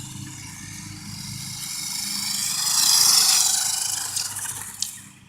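Toy RC car running, its electric motor and wheels whirring. The whir swells as the car comes close about three seconds in, then fades away.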